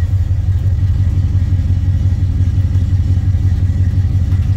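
1971 Chevrolet C10 pickup's engine, stock apart from an aluminum intake and headers, idling steadily while still warming up after a cold start.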